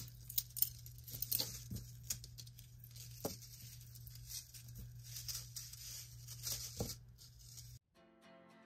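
Thin metal necklace chains faintly clinking and rustling as fingers work at a knotted tangle, in scattered small ticks over a low hum. Near the end the hum cuts off and faint background music comes in.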